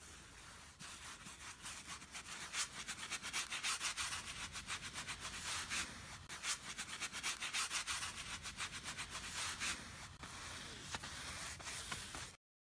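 Scratchy, crackling noise: a steady hiss thick with rapid small clicks, cutting off suddenly near the end.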